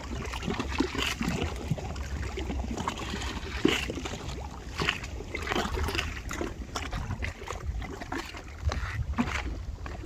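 River water splashing and sloshing in small irregular splashes, over a low rumble of wind on the microphone.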